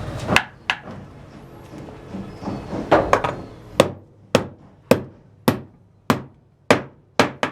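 Hammer striking wood: two blows near the start, then from about three seconds in a steady run of sharp blows, a little under two a second.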